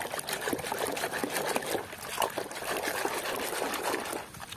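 Muddy, foamy water sloshing and splashing in a basin as a hand scrubs a toy under the surface, with many small irregular splashes. The splashing dies down near the end.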